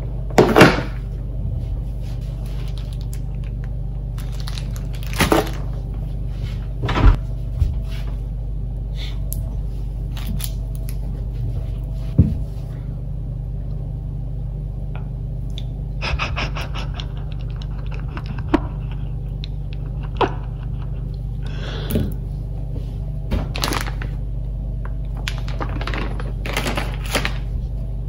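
Groceries set down one by one on a stone countertop: sharp knocks and clatters of a plastic rotisserie-chicken tub and vegetables, with brief crinkles of plastic packaging. A steady low hum lies underneath.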